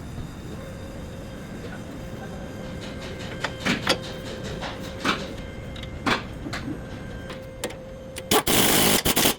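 A vehicle engine running steadily, with a series of sharp knocks and clicks over it and a loud burst of noise lasting about a second near the end.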